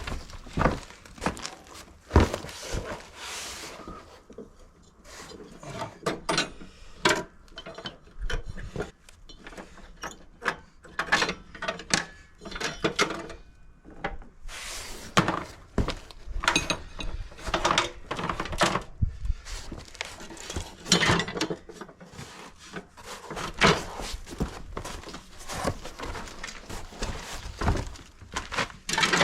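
Irregular knocks, clicks and short scrapes of hand tools and metal mower parts being handled and worked on.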